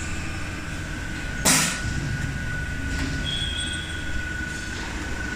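Automatic HVAC duct production line running, with a steady machine drone and a thin high whine. About a second and a half in there is one short, sharp burst of noise, and a brief higher whine sounds a little past the middle.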